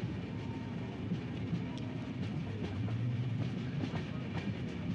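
Devagiri Express passenger coach running on the track, heard from its open door: a steady rumble of the wheels with scattered clicks over the rail joints.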